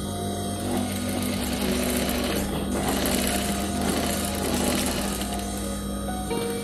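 Industrial sewing machine running, stitching a seam through fabric. The stitching starts about half a second in and stops shortly before the end.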